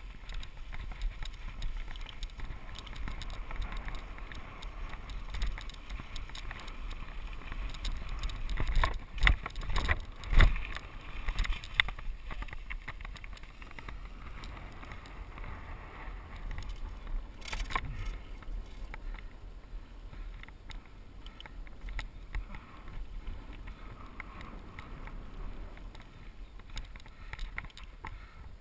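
Mountain bike rolling fast on a packed dirt trail, heard from a GoPro riding along: a steady rush of tyre noise, rattle and wind on the microphone, with a few sharp jolts from bumps, the loudest about ten seconds in and another near eighteen seconds.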